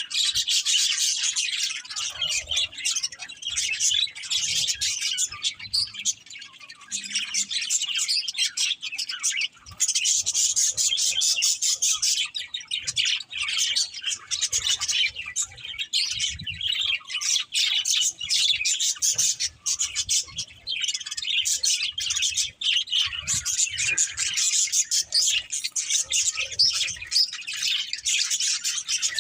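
Several budgerigars chirping in a dense, rapid stream of high chirps, easing off briefly a couple of times.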